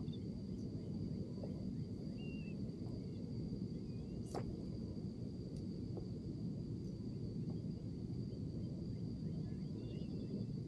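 Open-air ambience on the water: a steady low rush with faint short chirps of distant birds a few times and a thin steady high tone.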